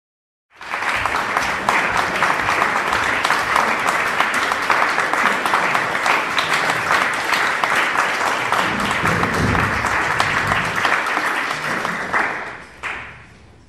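Audience applauding: dense, steady clapping that stops fairly suddenly about twelve seconds in, with a last brief patch of claps just after.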